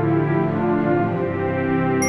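Background music: sustained orchestral-style chords.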